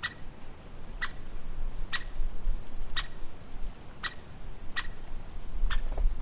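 A woodpecker giving short, sharp single call notes about once a second, seven in a row, over a faint low rumble.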